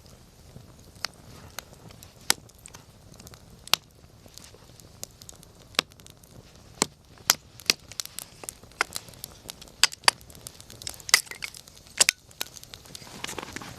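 Wood campfire crackling, with irregular sharp pops and snaps from the burning wood over a low steady hiss.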